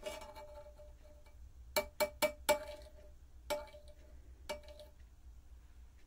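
Metal batik tjanting tool clinking against the rim of a pot of molten beeswax. About seven sharp clinks, each with a brief ring: one at the start, four in quick succession about two seconds in, then two more a second apart.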